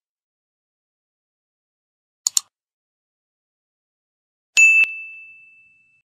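Mouse-click sound effect, a quick double click about two seconds in, then a bright bell ding near the end that rings on one high note and fades over about a second. These are the sound effects of an animated subscribe-button reminder, the ding going with the notification bell.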